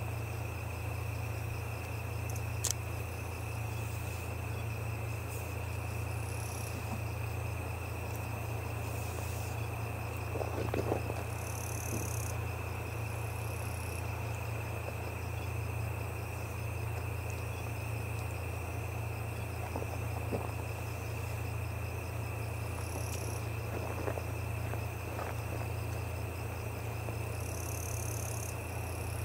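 Insects trilling and chirping: a steady high trill with short chirps coming back every few seconds, over a steady low hum.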